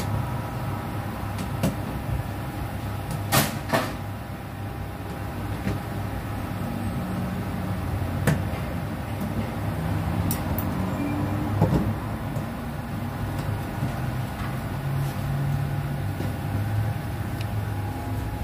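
Plastic engine undercover beneath a car being unfastened by hand: a few sharp clicks and knocks of its clips and fasteners over a steady low hum.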